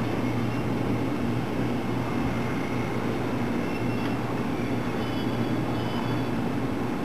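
JR Freight EH200 electric locomotive standing at rest, giving off a steady low hum with faint higher whining tones over it.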